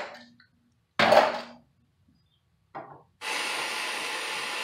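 Two short, loud handling clatters, then a little over 3 s in a handheld plumbing torch lights with a pop and burns with a steady hiss at a copper pipe joint.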